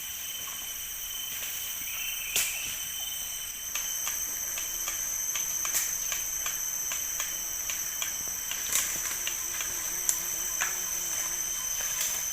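Rainforest insects droning in several steady high-pitched tones, with scattered sharp clicks and snaps throughout.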